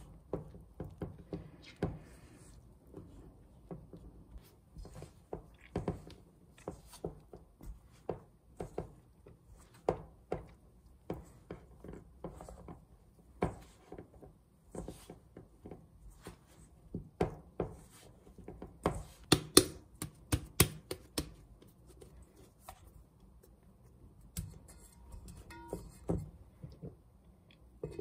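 Irregular light knocks and clicks of things being handled, with a quick run of sharper, louder clicks about twenty seconds in.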